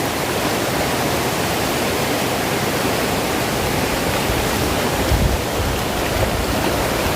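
Steady rush of river water pouring over the top of a waterfall, a constant even roar with no let-up. A brief low rumble comes about five seconds in.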